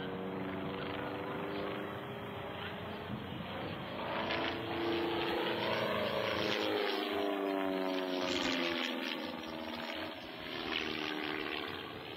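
Cap 21 aerobatic plane's piston engine and propeller droning in flight. The pitch rises and then falls as it manoeuvres, and it is loudest around the middle.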